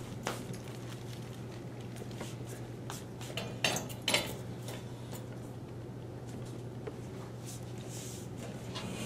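A metal music stand being handled and set up: scattered light knocks, then two louder metallic clacks about three and a half to four seconds in, over a steady low room hum.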